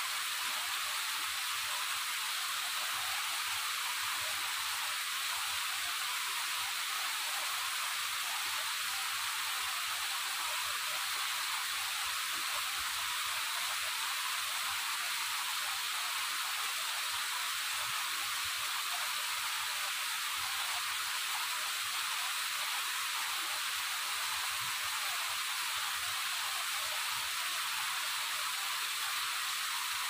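Waterfall's steady rushing hiss, the sound sitting high with almost no low rumble.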